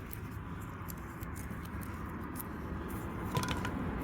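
Steady low rumble of road traffic, slowly growing louder, with a few light clicks about three and a half seconds in.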